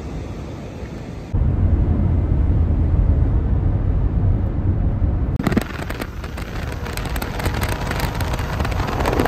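At first a train rolling away along the track, then, about a second in, a sudden switch to the heavy low rumble of wind buffeting and road noise in a moving car. A few seconds later it changes to a hiss of wind with crackling on the microphone, filmed through the car's side window as a passenger train runs alongside.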